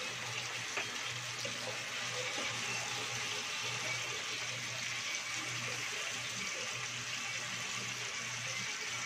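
Chicken pieces and soy sauce sizzling steadily in a nonstick frying pan while they are turned with a spatula, with a steady low hum underneath.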